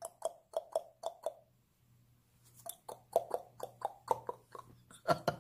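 A person making quick popping clicks with the mouth: a run of about six, a pause about a second and a half in, then a longer, faster run of clicks. A faint steady electrical hum sits underneath.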